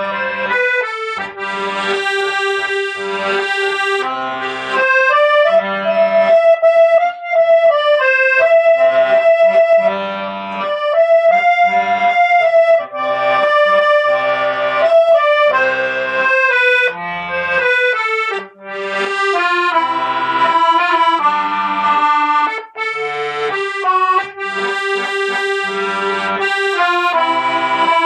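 Accordion playing a slow melody in held, sustained notes, with bass notes and chords pulsing in a steady rhythm underneath.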